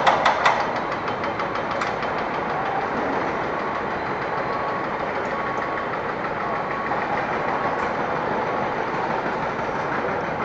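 Steady mechanical din of a construction site with machinery running. A steel formwork trolley clatters as it is pushed over the concrete right at the start, and faint, evenly spaced short beeps sound in the middle.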